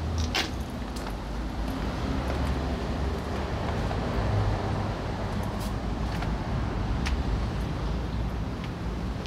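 Street ambience: a steady rumble of road traffic with a few faint clicks scattered through it.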